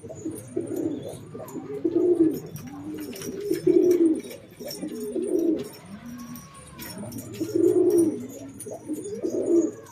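Domestic pigeons cooing, low repeated phrases that come every second or two and overlap from several birds.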